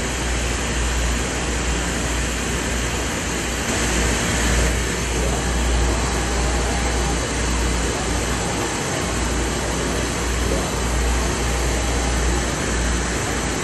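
UV flatbed printer running: a steady mechanical whir and hiss over a low rumble.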